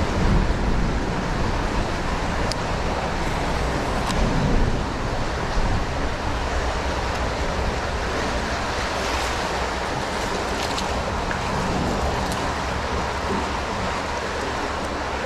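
Steady rush of creek water flowing through a concrete culvert.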